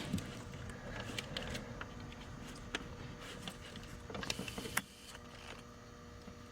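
Scattered light clicks and knocks of hand tools and parts being handled in an engine bay, with a short busier patch of clatter near the end, over a faint steady hum.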